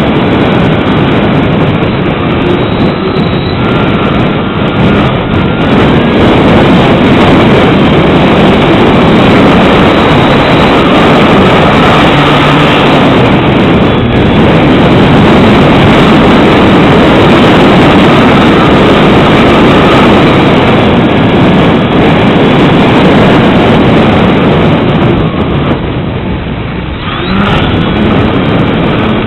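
Strong gusty wind buffeting the microphone, easing briefly near the end, with a faint wavering high whine underneath.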